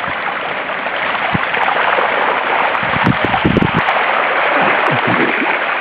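Knobby front tyre of a mountain bike ploughing through shallow floodwater on a road: a steady, loud rush and splash of spray, with a few low wavering sounds about three and five seconds in.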